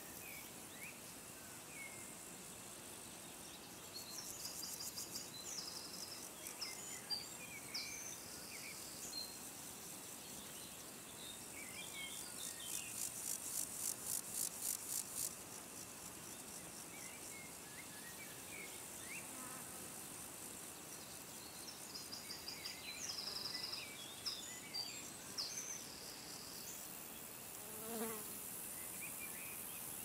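Insects calling in bouts of a few seconds, each a run of high pulses at about four a second, the loudest run about halfway through. Faint short chirps come between the bouts, and a short low note sounds near the end.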